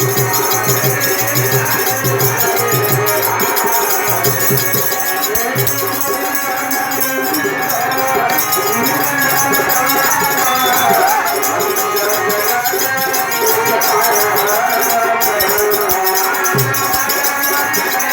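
Music of a Hindi devotional song in a film-song style, with rattling shaker-type percussion under a winding melody line.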